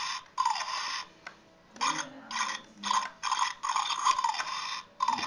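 Paper being torn by a small child: a quick series of short rips.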